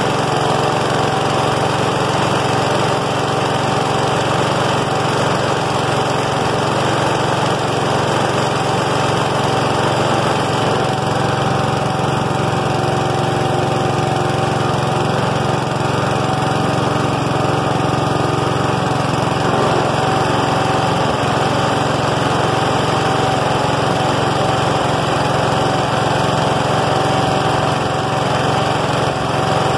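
The flathead engine of an Ariens RM830E rear-engine riding mower, running steadily at an even speed just after a cold start.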